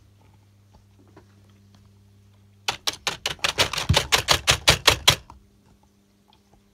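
Computer keyboard keys clattering in a fast, even run, about six clicks a second for some two and a half seconds.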